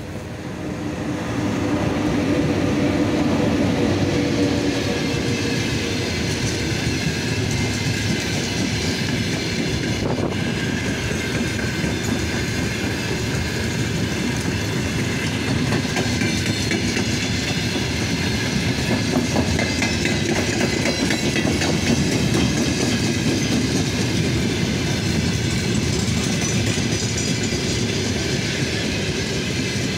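A freight train hauled by a VL80T electric locomotive passes close by: a steady hum and a rising rumble as the locomotive goes past in the first few seconds, then a long train of freight wagons rolling by, the wheels clacking over the rail joints.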